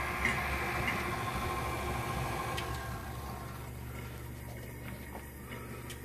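KitchenAid stand mixer running on low speed, a steady motor hum as it mixes a full bowl of cheesecake batter, growing a little quieter in the second half.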